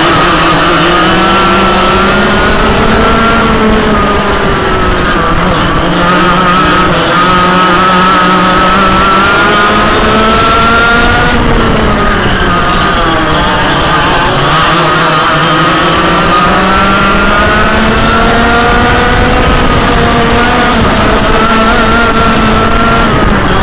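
Dirt kart engine at racing speed, heard from on board the kart, its pitch rising and falling with the throttle; it drops sharply about halfway through as the kart slows, then climbs again.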